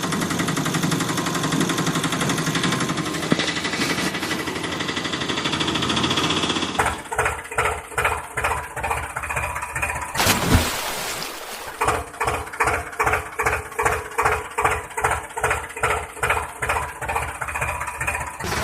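Heavy vehicle engine sound: a steady run for about seven seconds, then a slow, even chugging of roughly three beats a second. A sharp knock comes about ten seconds in, and the chugging resumes.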